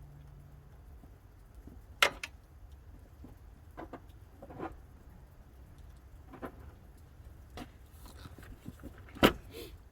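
Hand tools clinking: a socket and ratchet being handled and tried on a bolt, with a few sharp metal clicks and knocks spread out, the loudest about two seconds in and again near the end.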